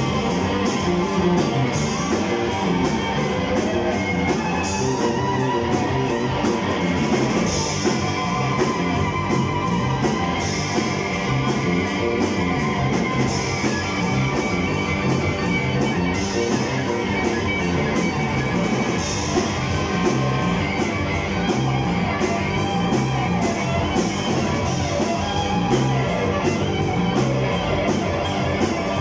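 Live rock band playing: distorted electric guitar, electric bass guitar and drum kit, with a steady beat.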